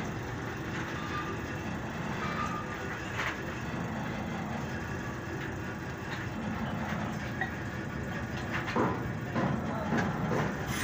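Hydraulic press running with a steady machine hum while its ram presses down on a chrome excavator boom pin to straighten it, with a few sharp knocks near the end.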